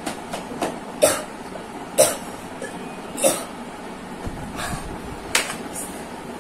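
Coughing and sharp breaths from people reacting to the burn of very spicy ramen, about four loud short bursts a second or so apart.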